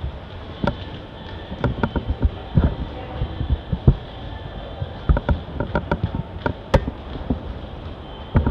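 Runners' footfalls on a rubberized indoor running track: irregular thuds and sharp slaps as shoes strike the surface close by, over a steady background hum.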